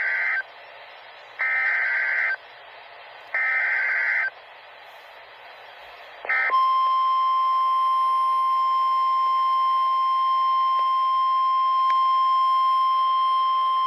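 Emergency Alert System signal. First come three short bursts of SAME header data, the screeching digital bursts that code the alert, each about a second long. About six and a half seconds in, a steady single-pitch alert tone near 1050 Hz begins and holds unbroken: the NOAA Weather Radio warning alarm tone that precedes a warning message.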